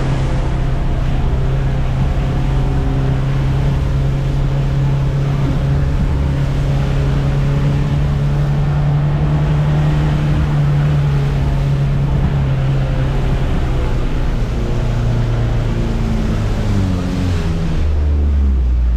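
Off-road vehicle's engine running at a steady pitch as it drives through shallow floodwater, with water splashing up around the wheels. Near the end the engine note drops as the vehicle slows.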